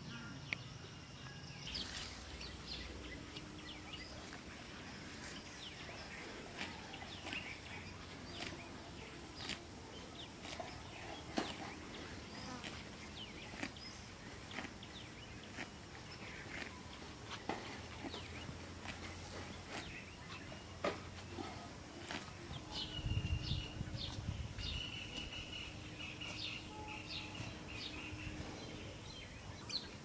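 Outdoor ambience: a steady high-pitched tone over scattered light clicks and taps, with a run of short repeated bird calls and a low rumble starting about two-thirds of the way in.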